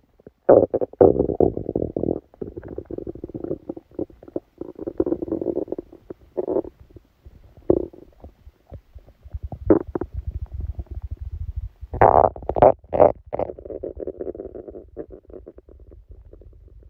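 Human stomach growling and gurgling in irregular bursts, a sign of a stomachache after eating. A louder cluster of short gurgles comes about twelve seconds in.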